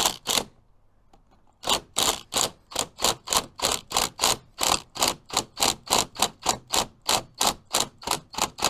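Impact driver with a Torx bit driving a frame-fixing screw through an aluminium window frame into the masonry. It goes in short rapid bursts, about three or four a second, from about two seconds in, after one brief burst at the very start. The screw is being snugged up in small steps so that it does not bow the frame.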